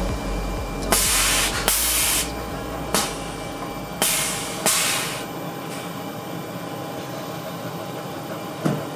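Air suspension on a lowered Toyota bB exhausting air in four short hisses, in two pairs, as the car drops onto its air bags, with a sharp click between the pairs and another near the end. A low hum underneath fades out about halfway through.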